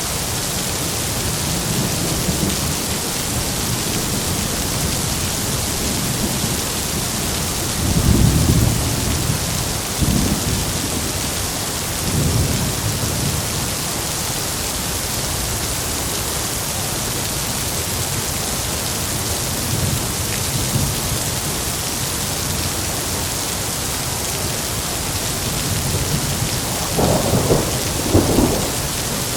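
Heavy rain falling steadily, with rolls of thunder rumbling several times and a louder, sharper run of thunder near the end.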